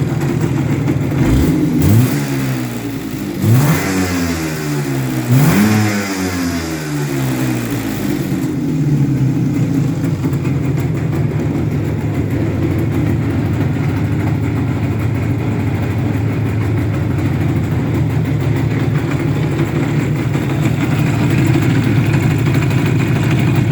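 IZh Jupiter 4 two-stroke twin-cylinder engine revved three times in quick blips, then idling steadily. It rattles with piston-pin knock, the sign of a worn connecting-rod small-end bushing.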